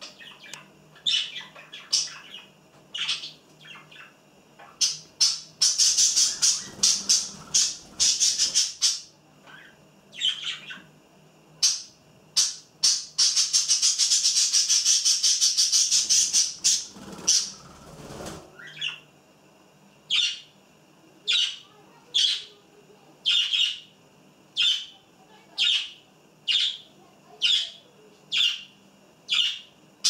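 Budgerigars chirping and chattering: scattered short high calls, a fast run of chirps, and a few seconds of unbroken warbling chatter in the middle. In the last third the calls settle into single chirps about once a second.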